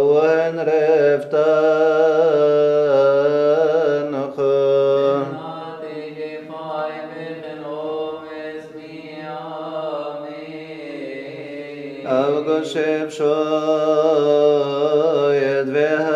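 Slow vocal chant in long, wavering held notes over a steady low drone note, softer in the middle and swelling again about twelve seconds in.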